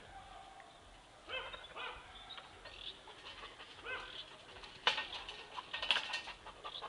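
Dog barking and whining faintly in a few short calls, with a couple of sharp clicks near the end.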